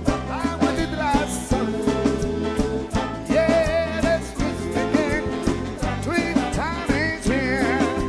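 Rock-and-roll band playing live, with a steady drum beat, a stepping bass line, and a lead line that bends and wavers above them.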